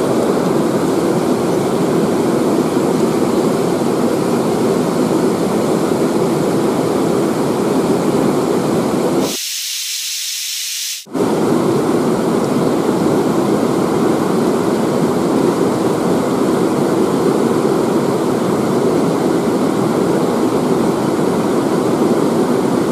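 Fast river current rushing over rocks, a steady loud rush of water. About nine seconds in it thins to a high hiss for nearly two seconds, then the full rush returns.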